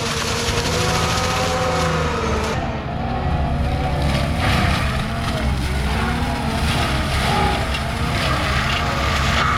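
Skid steer running a forestry mulcher through brush, the engine and mulcher drum held high with their pitch wavering up and down as the load changes.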